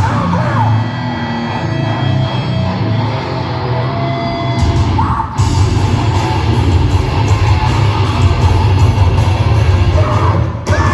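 Heavy rock band playing live, loud, with distorted guitars and drums. A lighter passage gives way to the full band crashing back in about four and a half seconds in.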